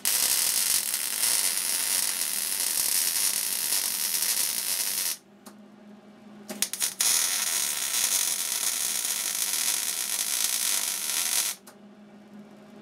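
Electric arc welding of a steel pipe onto a steel plate: the arc gives a steady hiss for about five seconds and stops. After a couple of short strikes it runs steadily again for about four more seconds and stops near the end.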